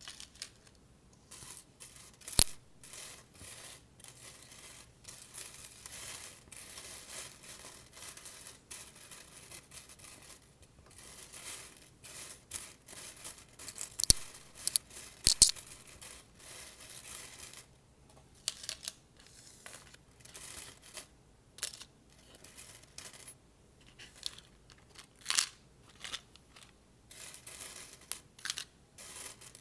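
Metal paper clips clinking and rattling against a magnet in a run of sharp little clicks and bursts of jingling, with short pauses between handfuls. A few single clicks stand out louder, about two seconds in and twice around the middle.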